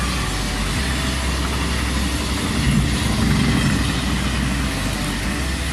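Electric locomotive-hauled passenger train passing along the station track: a steady rush of wheel and rail noise, a little louder around the middle.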